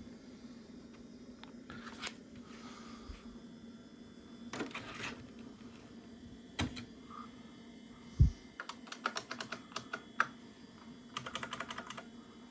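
Keystrokes on a computer keyboard, in short groups, with a quick run of keys near the end and a single dull thump about eight seconds in, over a steady low hum.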